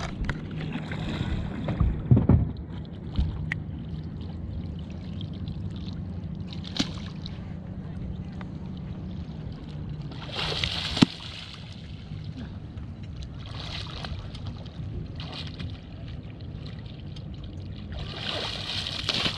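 Steady low hum of an idling boat motor, with water splashing about ten seconds in and again near the end as a swimmer moves a floating gun bag, and a few knocks and thumps around the boat.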